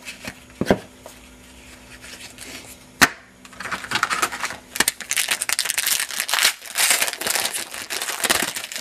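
Foil trading-card pack wrapper crinkling as a pack is opened and handled, dense and crackly from about three and a half seconds in. A few light taps of card stock come before it, the sharpest about three seconds in.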